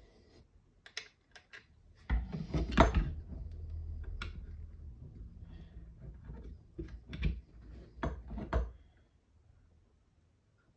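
Printed plastic kit parts and a Hi-Capa airsoft pistol being handled and fitted together by hand: scattered clicks and knocks, with a denser clatter of tapping and rubbing about two seconds in and a few sharper clicks later on.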